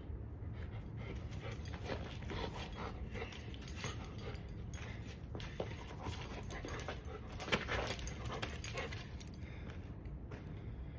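A dog making a series of short, irregular sounds, busiest about eight seconds in.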